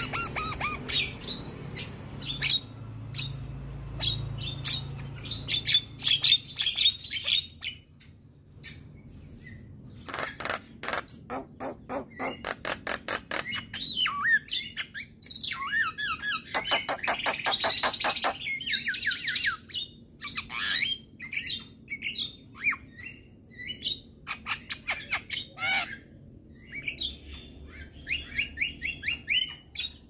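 A male Javan myna (jalak kebo) singing: a rapid string of harsh, chattering calls, clicks and squawks mixed with short gliding whistles. Fast rattling runs come about a third and halfway through, with a few short pauses.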